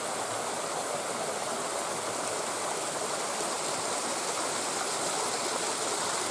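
Steady rushing of a waterfall's falling water, unbroken throughout.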